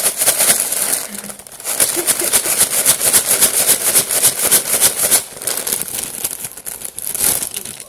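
McDonald's Shake Shake Fries paper bag being shaken hard to coat the fries in their seasoning: fast, rhythmic paper rustling, with a short pause about a second in and a quieter stretch after about five seconds before one last burst.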